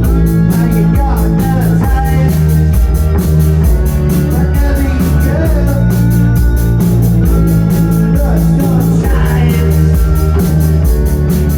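Live rock band playing loud, with distorted guitar, a heavy bass line and a drum kit keeping a steady beat of about four cymbal strokes a second.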